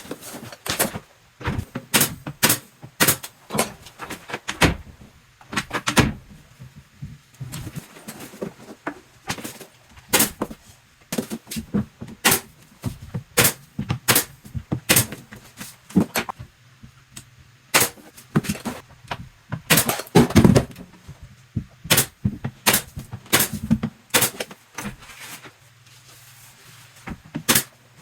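Wooden door stop moulding being fastened to a door jamb: dozens of sharp, irregular snaps and knocks, some in quick runs, with a heavier thud about twenty seconds in.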